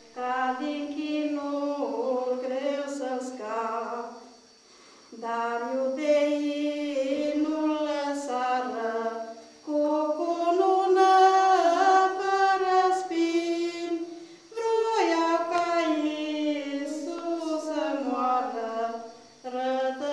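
High voices singing a slow, unaccompanied Romanian song about the crucifixion. The notes are long and held, in phrases of about five seconds with short breaks for breath between them.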